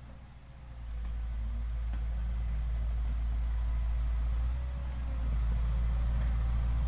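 Remote-control toy excavator running, a steady low rumble that starts about a second in and dips briefly near the middle before coming back.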